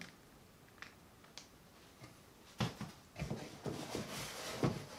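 Hands handling a cardboard box and its foam packing insert: a couple of faint clicks, then from about halfway a run of light knocks and rustles.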